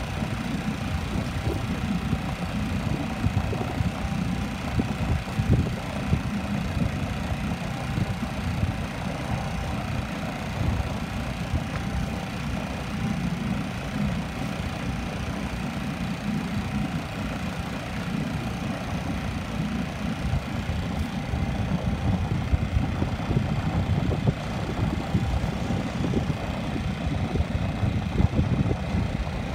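Small boat's outboard motor running steadily, pushing the boat slowly through the water.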